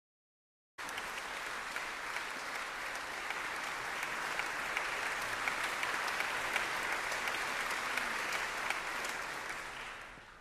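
Concert-hall audience applauding. The applause starts sharply about a second in and dies away near the end.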